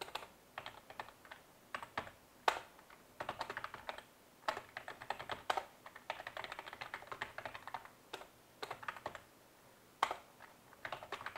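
Typing on a computer keyboard: short bursts of keystrokes with pauses between them, and a few louder single key strikes standing out.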